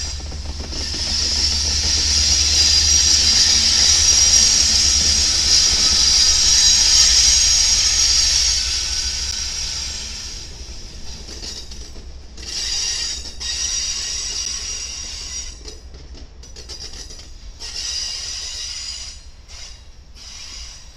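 Freight train rolling past on a curve, its steel wheels squealing loudly and high-pitched against the rails over a low rumble. The squeal holds for about the first ten seconds, then drops away and returns in a few shorter squeals.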